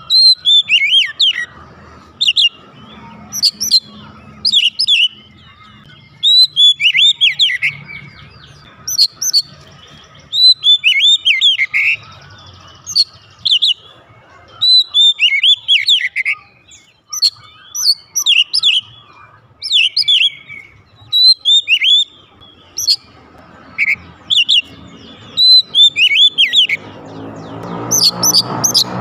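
Oriental magpie-robin singing loud, clear whistled phrases of rising and falling notes, one after another with short pauses. Near the end a low droning hum swells up underneath.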